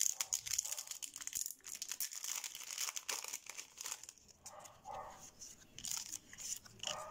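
Foil wrapper of a Yu-Gi-Oh booster pack crinkling and crumpling in the hands as the pack is emptied, dense for the first few seconds and then sparser.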